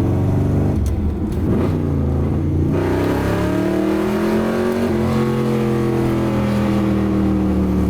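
1981 Corvette's 350 V8 and exhaust under way, the engine note climbing as it accelerates, then holding and slowly easing down. The freshly repaired exhaust runs without clanking or leak noises.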